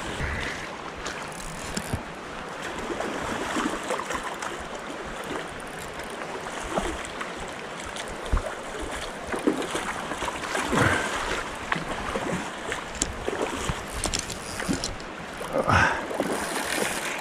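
Steady rush of shallow creek water, with a few brief clicks and knocks close by.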